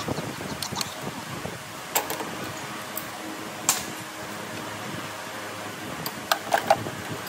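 Scattered sharp clicks and knocks of hand tools at work on an engine, with a quick cluster of three near the end, over a steady background hum.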